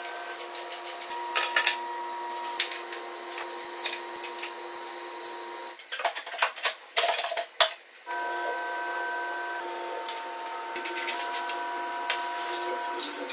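Clicks, rattles and scrapes of rusty motorcycle parts being handled and worked loose during disassembly, in clusters about a second and a half in, in the middle and near the end. Under them runs a steady hum of several held tones.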